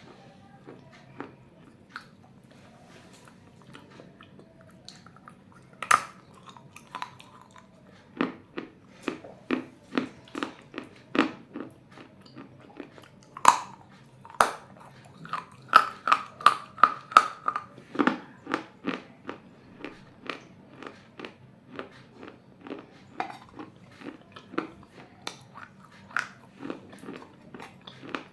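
A person biting and chewing pieces of baked clay bowl, crisp crunches close to the microphone. Single hard bites come about 6 and 13 seconds in, then a quick run of crunches, then steady chewing crunches about one or two a second.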